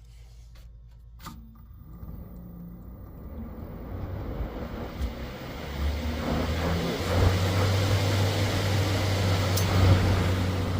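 Goodman heat pump air handler's blower motor starting up: a click about a second in, then its hum and rush of air build over several seconds to a steady run. The motor has been cutting in and out intermittently, which the technician puts down to a blower motor starting to fail.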